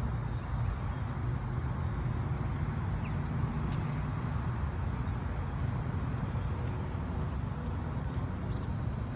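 Steady low rumble of outdoor background noise, with a few faint, brief high chirps.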